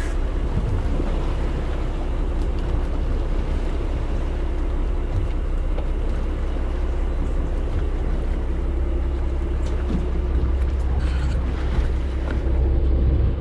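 Fishing boat's engine running steadily, with wind buffeting the microphone.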